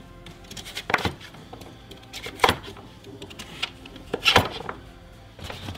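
Chef's knife chopping peeled butternut squash into cubes on a wooden cutting board: several sharp knocks of the blade through the firm flesh onto the board, spaced irregularly about a second apart.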